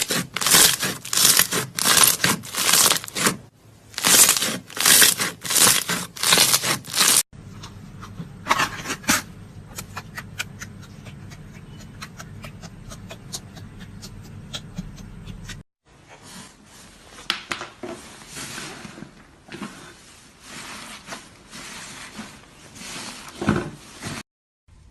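Slime being squished and pressed by hand in three short clips cut together. First comes a run of loud squishes, several a second. After a sudden cut about seven seconds in there is a quieter stretch of fine crackling clicks, and after another cut past the middle, softer squishing.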